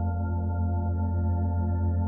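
Background ambient music: layered, organ-like drone tones held steady.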